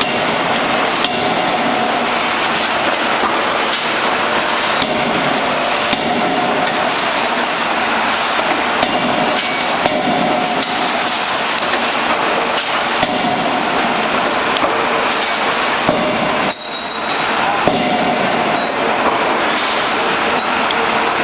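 CNC closed-die forging hammer at work: sharp blows every one to three seconds over a constant loud clattering din, with a brief drop in the din about sixteen seconds in.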